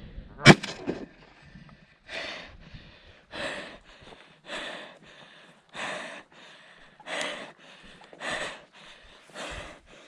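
A person breathing hard, a loud breath about every second and a quarter, after one sharp knock about half a second in.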